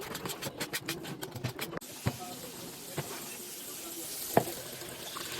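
Kitchen cooking sounds: for about two seconds, a fast run of short scraping or clicking strokes. Then a steady hiss starts suddenly, with a few sharp knocks over it, the loudest near the end.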